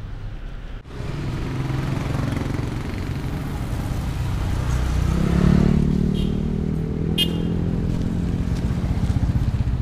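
A motorcycle engine runs close by, its pitch rising about five seconds in as it revs, then holding steady. A short high chirp sounds about seven seconds in.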